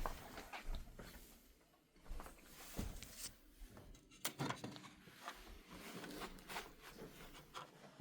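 Scattered light clicks and knocks of hard 3D-printed plastic parts being handled and set down, at irregular moments throughout.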